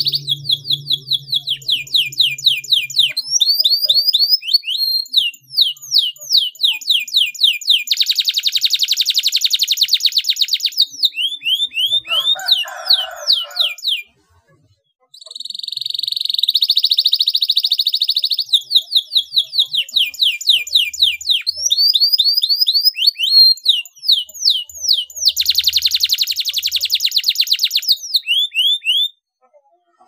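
Domestic canary singing a long, loud song of rapid repeated downward-sweeping whistles and fast rattling trills, with a short pause about halfway through and another just before the end.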